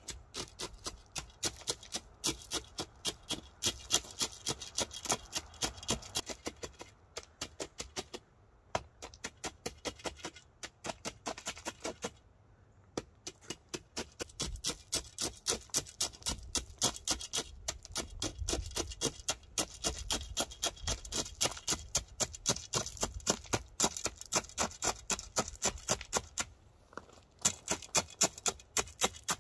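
Metal bar jabbed again and again into crushed-stone ballast, packing it under the ties of a miniature railway track: quick sharp clicks and crunches of stone, about three a second, with brief pauses.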